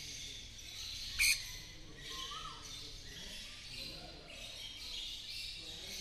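Birds chirping in the background: a steady high twittering, with one short chirp a little over two seconds in. A single sharp click, the loudest sound, comes about a second in.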